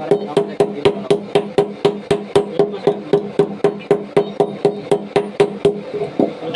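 A hand tool working wood or metal in rapid, even strokes, about four a second, each with a short ringing note. The strokes stop shortly before the end.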